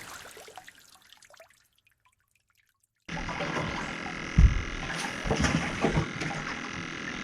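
Water sounds fading out to silence. Then a steady hum of outdoor ambience on the water comes in abruptly, with a single low thump a little after it starts.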